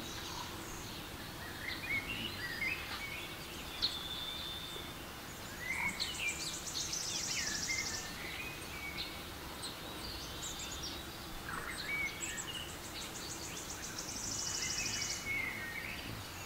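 Forest ambience with birdsong from a nature-sounds app: birds chirping and whistling over a steady background hiss. A long, rapid, high buzzing trill comes about six seconds in and again near the end.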